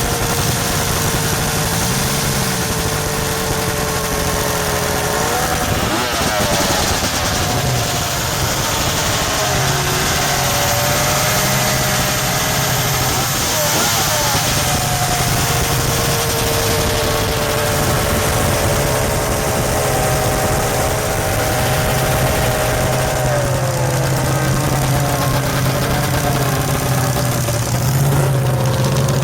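Several engines running together at a steady speed, their pitches wandering slightly. One engine drops in pitch about three-quarters of the way through, over a steady low drone.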